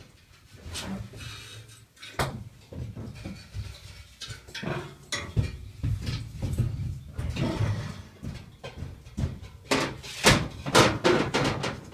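Irregular knocks and clatter of a metal truck grille being handled and set against the metal wall inside a lorry's box body, with a quick run of sharp knocks about ten seconds in.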